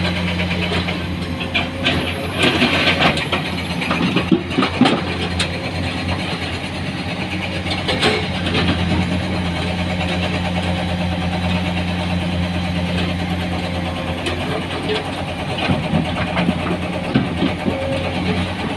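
Heavy diesel engine running steadily at a low, even speed, with bursts of clattering a few seconds in and a sharp knock about eight seconds in.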